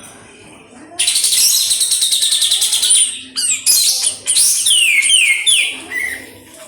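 Kapas tembak, a bulbul, singing: a fast chattering run of rapid repeated notes begins about a second in, followed by a series of clear whistled notes that slide downward in pitch, fading out near the end.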